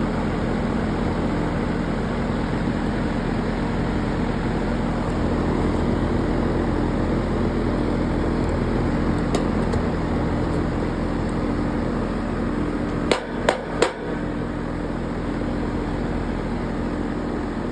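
Air-conditioning condenser unit running with a steady hum, its compressor and fan going. About thirteen seconds in come three sharp clicks in quick succession.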